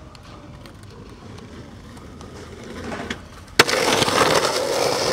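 A skateboard lands with one sharp crack about three and a half seconds in. Its wheels then roll loudly and steadily over rough pavement. Before the landing there are only a few faint clicks.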